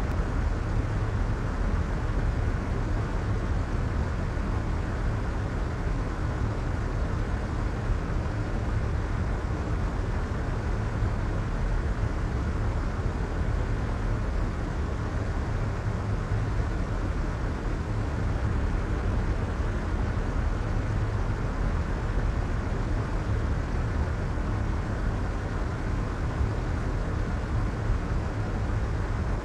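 Steady soft white noise: an even, unchanging hiss with most of its weight in the low end and little treble.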